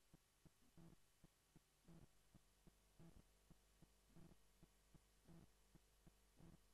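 Near silence: a faint electrical hum with soft, evenly spaced pulses about once a second and fainter ticks in between.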